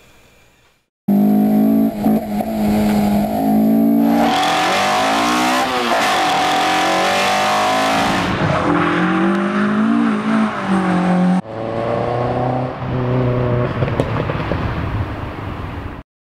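Performance car engine revving, its pitch held high, then rising and falling, in several clips cut together abruptly; it starts about a second in and cuts off just before the end.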